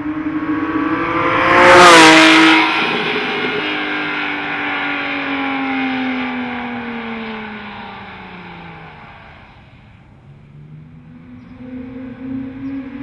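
Porsche 997 GT3 RS flat-six through a SharkWerks aftermarket exhaust, accelerating hard past, loudest about two seconds in with a sudden drop in pitch as it goes by. The engine note then falls away steadily as it recedes, and near the end it rises again under acceleration.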